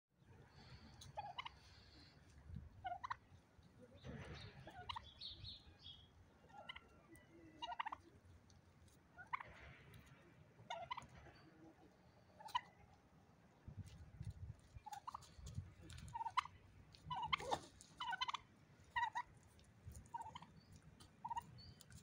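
Domestic turkeys calling as they feed: a string of short calls and gobbles a second or so apart, busiest and loudest about three-quarters of the way through, with scattered light clicks.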